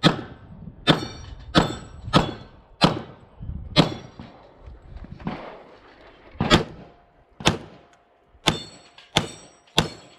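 Pistol fire at steel targets: about eleven sharp shots, most followed by the brief high ring of a steel plate being hit. The shots come in two quick runs with a pause of a couple of seconds between them.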